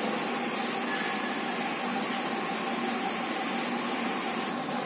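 Steady whir of a running fan, even throughout, with a faint steady tone in it.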